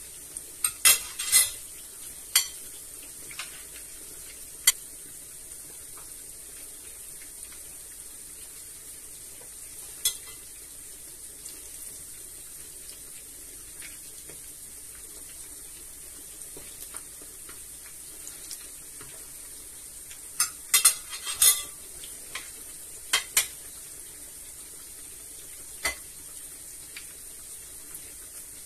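Food sizzling steadily in a frying pan, with sharp clinks of a utensil against the pan and dishes: a cluster right at the start, a few single ones, and another cluster about twenty seconds in.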